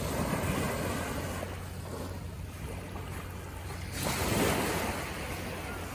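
Small waves washing up on a sandy beach in a steady hiss, with one louder wash about four seconds in.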